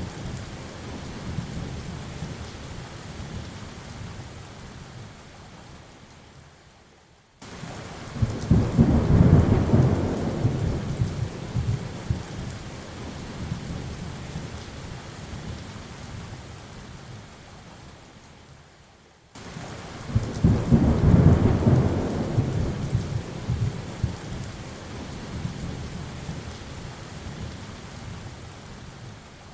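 Steady rain hissing, with rolling thunder: a fading rumble at the start, then two deep rumbles that come in abruptly, about seven and nineteen seconds in, each swelling for a couple of seconds and then dying away slowly.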